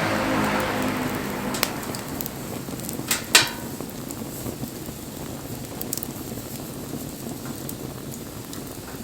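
Wood fire burning with scattered crackles and pops, and one louder sharp pop about three seconds in. A rushing hiss at the start fades away over the first second or two.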